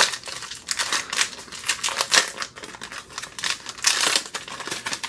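Foil wrapper of a trading-card booster pack crinkling and crackling in the hands as the pack is opened, in quick irregular crackles.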